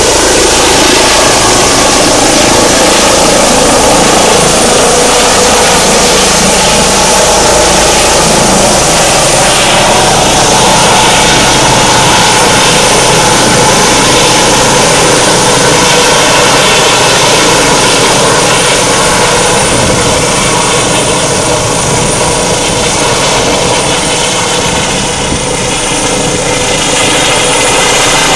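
Eurocopter EC135 helicopter climbing away overhead: a loud, steady mix of turbine whine and rotor noise with a thin high whine held throughout. The sound dips a little about three-quarters of the way through.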